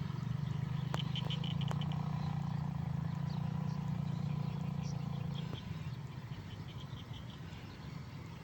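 Frogs calling in a nature chorus: a steady low hum that drops away about five and a half seconds in, over repeated short, rapid, high-pitched pulsed calls.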